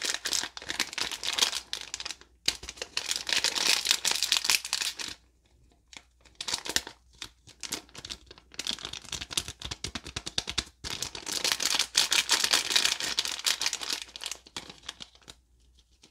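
Plastic sachet crinkling and crackling as hands squeeze and work it to shake out the last of the powder, in several spells with short pauses between.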